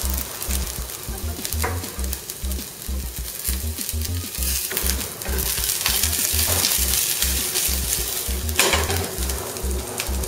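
Garlic and onion frying in olive oil in a stainless steel pan, a steady sizzle that grows louder about halfway through as the pan is shaken. There are a few sharp knocks of a knife on a wooden cutting board, over background music with a steady bass line.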